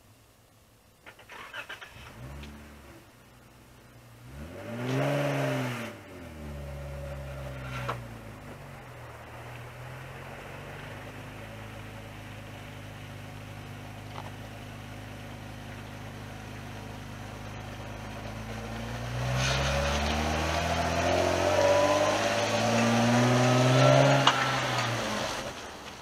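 An engine starts about two seconds in, revs briefly, then settles into a steady idle. Near the end it revs up and grows louder, then drops away.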